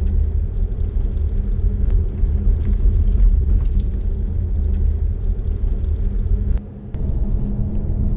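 Steady low road and tyre rumble of a BYD Seal electric sedan driving, with no engine sound. It dips briefly about a second and a half before the end.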